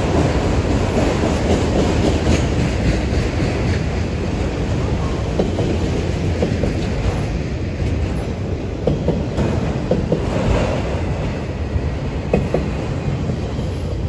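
Freight train of autorack cars rolling past: a steady rumble of steel wheels on rail, with a few sharp clicks and clanks in the second half. It drops off a little near the end as the last car goes by.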